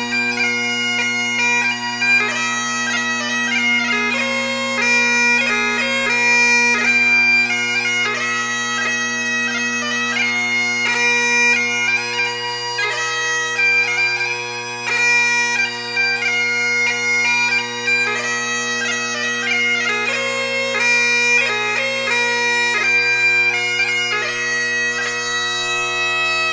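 Bagpipes playing a tune of held notes over steady, unbroken drones.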